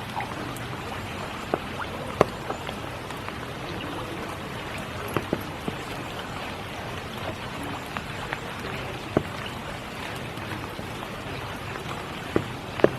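Spring rain falling steadily, a constant hiss with individual drops tapping sharply and irregularly every second or so.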